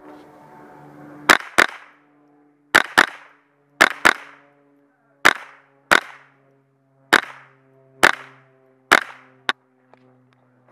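.22 rimfire rifle firing about a dozen quick shots, several in close pairs, heard from a camera taped to the barrel. A faint steady ringing carries on between the shots.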